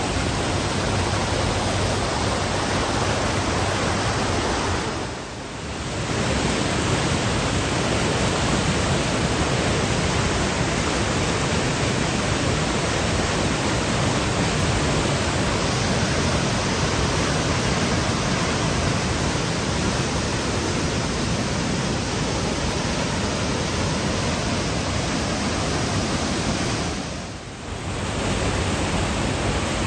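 Steady rushing of a muddy flash-flood torrent, loud and even. It drops away briefly twice, about five seconds in and near the end.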